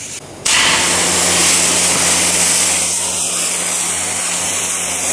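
Pressure washer blasting a jet of water onto a car wheel and brake disc. It starts suddenly about half a second in as a loud, steady hiss of spray over the hum of the washer's pump. This is the first high-pressure rinse of the wheel.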